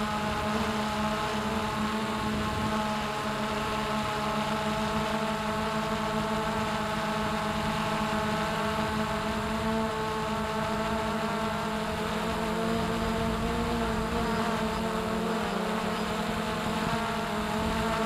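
Multirotor drone's electric motors and propellers whining steadily, heard from the drone's own camera, over a haze of rushing air.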